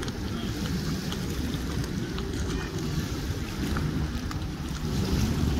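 Wind buffeting the microphone over lake water lapping at a concrete boat ramp, with boat motors running in the distance.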